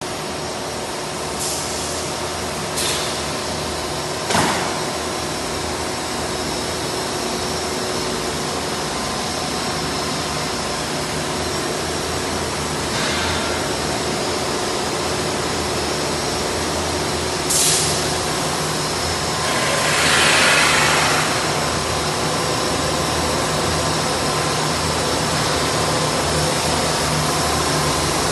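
Steady din of factory machinery running, electric motors and pumps on a pipe production line, with a low hum. A few brief sharp noises break through, and a hiss lasts about a second and a half around twenty seconds in.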